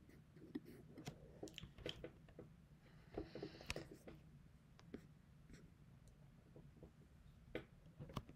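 Near silence: quiet room tone with faint, scattered clicks from a computer being worked.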